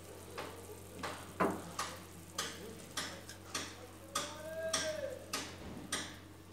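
Light, irregular clicks and taps, about two a second, from a steel plate and a pan as ground cashew powder is tipped and pushed into simmering sugar syrup. A faint tone rises and falls briefly a little past the middle.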